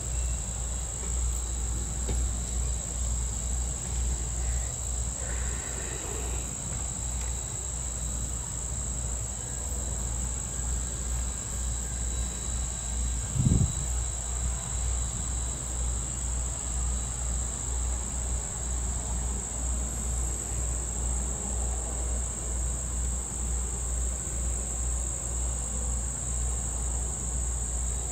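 Steady, high-pitched song of summer insects, over a continuous low rumble. A single low thump comes about halfway through.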